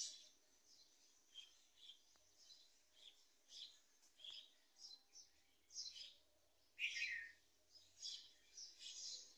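Faint birds chirping: short high chirps every second or so, with a louder call that falls in pitch about seven seconds in.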